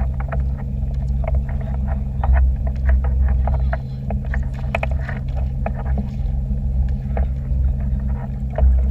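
A small boat's motor running steadily with a low drone while towing, with irregular splashes and slaps of water close by.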